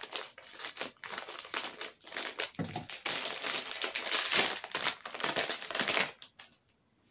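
Plastic fruit-snack pouch crinkling as it is cut open with scissors and pulled apart by hand. The crinkling is loudest around four seconds in and stops about a second before the end.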